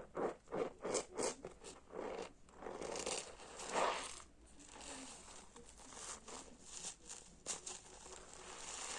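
Hard, soap-soaked sponge being squeezed, squelching and crackling with foam: several quick squeezes in the first two seconds, a louder, longer squish about four seconds in, then softer crackling of the foam.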